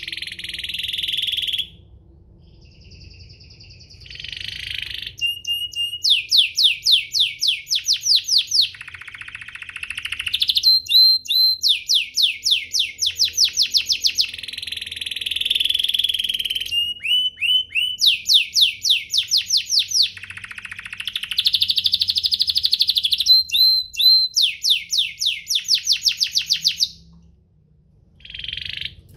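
Domestic canary singing a long, varied song: fast trills of rapidly repeated sweeping notes alternate with denser rolling passages, phrase after phrase with brief pauses between.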